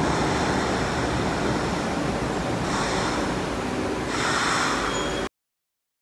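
Kawasaki-built Broad Street Line subway train rolling past a station platform: a steady rumble of wheels on rail. Brief high metallic squeals come about three seconds in and again about four and a half seconds in. The sound cuts off suddenly a little after five seconds.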